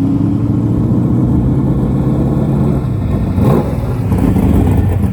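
Car engine running steadily at low revs, with a brief sweep in pitch about three and a half seconds in.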